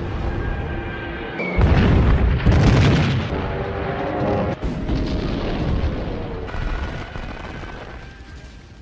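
Intro music soundtrack with war sound effects: held tones under heavy artillery-like booms, the loudest about one and a half and two and a half seconds in, then the mix fades out.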